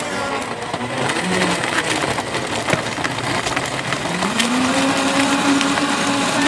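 Countertop blender crushing watermelon chunks and ice, with many sharp clicks of ice striking the jar. About four seconds in the motor speeds up, its pitch rising and then holding steady as the mix turns to smooth purée.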